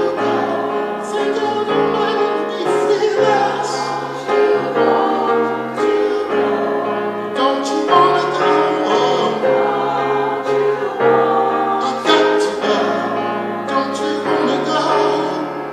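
Singing with grand piano accompaniment; the sung notes waver with vibrato over sustained piano chords.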